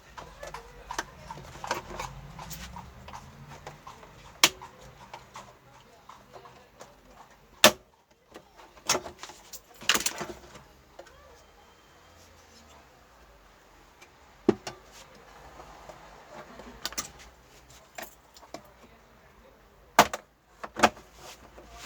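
Scattered sharp clicks and knocks of small tools, screws and hard plastic being handled as a TV's back cover is taken off, with a few louder knocks spread through.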